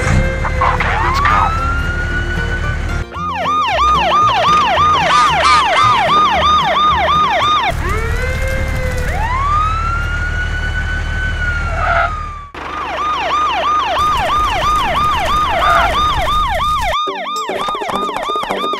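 Emergency-vehicle siren alternating between slow rising-and-falling wails and a fast yelp of about three to four sweeps a second, over a low steady background that cuts out near the end.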